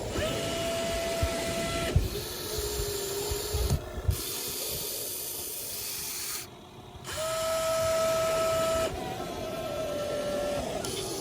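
Electric motors of a radio-controlled toy excavator whining in steady tones that switch between a higher and a lower pitch every second or two as it works, with a few short knocks about two and four seconds in.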